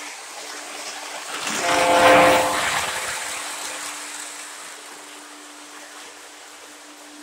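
O gauge model train running by, its rolling rumble swelling to a peak about two seconds in and then fading slowly, with a brief horn sound at the peak. A steady hum runs underneath.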